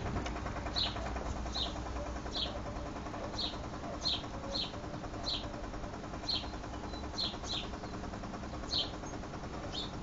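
Whirlpool front-loading washing machine draining, its drain pump giving a steady low hum. Short high chirps come roughly once a second over the hum.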